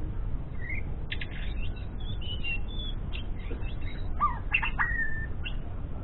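Murai medan (white-rumped shama) practising its song in short, scattered phrases: quick chirps, clicks and brief whistles. About four seconds in comes a short rising note, then a held whistle.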